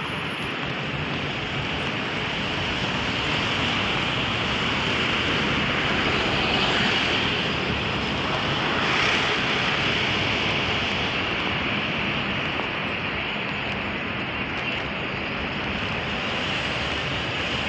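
Steady rushing outdoor noise with no distinct events, swelling a little around the middle.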